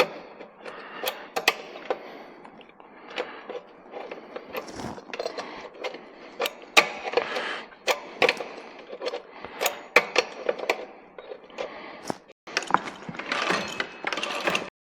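Hand tools clinking and knocking against the metal parts of a mini bike's rear wheel and axle as it is tightened up, in irregular sharp clicks and clanks.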